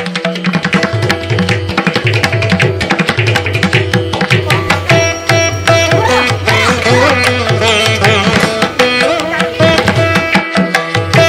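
Indian classical-style instrumental background music: a fast tabla rhythm over plucked strings and a steady drone.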